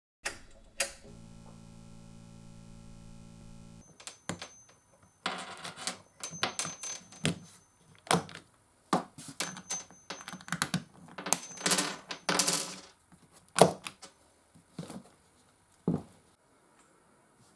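Sharp metallic clicks and clattering from a Consul 221 manual typewriter's metal mechanism being handled, in irregular clusters. A steady low hum with a few tones runs for about three seconds near the start.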